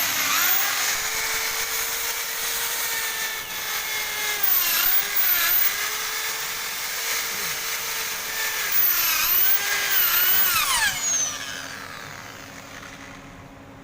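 Electric drill spinning a wire brush against an engine block, stripping off flaking paint. Its motor whine dips in pitch briefly in two spells as the brush is pressed in, and it is released and winds down about eleven seconds in.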